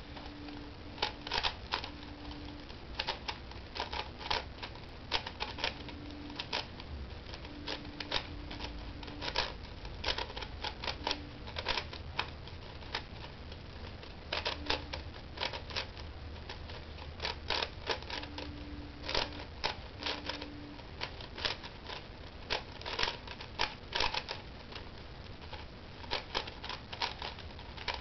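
QJ tiled 4x4 puzzle cube being turned fast in a speedsolve: plastic layers clacking as they snap round, in irregular quick runs of clicks with short pauses between.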